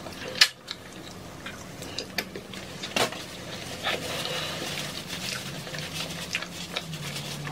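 Mukbang eating sounds: tacos chewed close to the microphones, with scattered sharp clicks and a steadier stretch of chewing noise in the second half.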